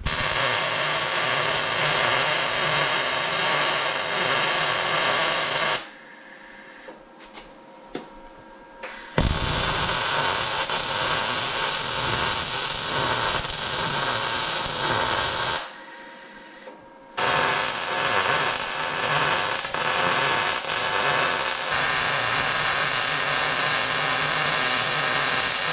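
Wire-feed welder arc sizzling steadily as an angle-iron brace is welded onto a steel steering drag link, in three runs of about six to eight seconds with two short breaks between them.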